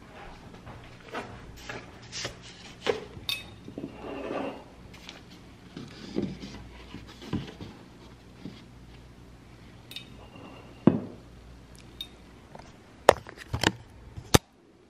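Things being moved about on a granite countertop: a canvas painting and a glass vase shifted and set down, with scattered knocks and scrapes, and a few sharp clicks near the end.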